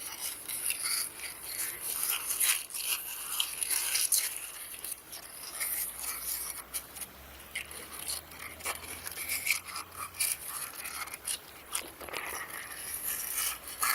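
Repeated scraping and rubbing, a dense run of short scratches.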